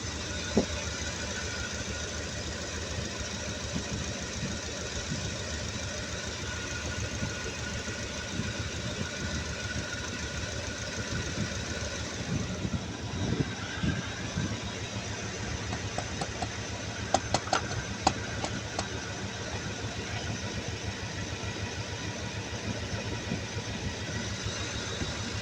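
2014 Ford Raptor's 6.2-litre V8 idling steadily, running again after a blown fuse in the fuel pump relay circuit had left it cranking without starting. A short run of light clicks sounds about two-thirds of the way through.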